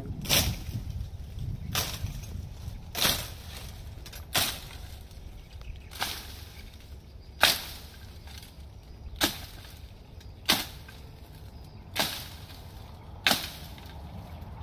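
A long-handled blade swung again and again into a bamboo thicket: about ten sharp swishing chops through leaves and stems, roughly one every second and a half.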